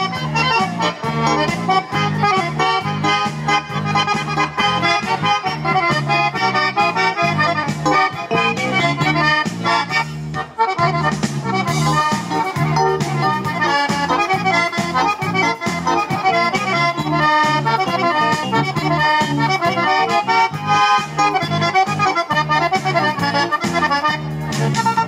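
Organetto, the diatonic button accordion, playing a traditional dance tune over a steady, pulsing bass beat.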